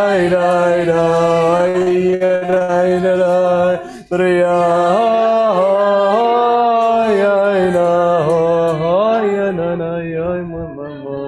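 Voices singing a slow, ornamented melody over a lower held note, like a chant. The singing breaks off sharply for a moment about four seconds in, then carries on and fades out near the end.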